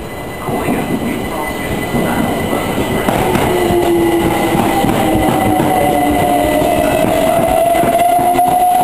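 London Overground electric multiple unit running past the platform close by, its rumble building from about half a second in and growing louder again at about two seconds. From about three seconds in, a steady high tone with a lower one beneath it bends slowly in pitch over the rail noise.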